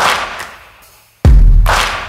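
Background music with a heavy beat. It dies away briefly about a second in, then comes back with a loud bass hit.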